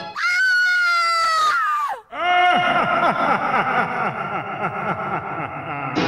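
A woman's long, high-pitched scream, held for about two seconds and sagging in pitch at its end. After a brief break, a second, lower scream follows, crowded with many overlapping downward-sliding tones.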